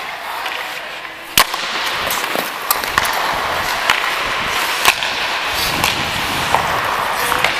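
Ice hockey faceoff and play: a sharp crack of sticks and puck on the ice about a second and a half in, then skate blades scraping the ice with several more stick clacks, the loudest about five seconds in.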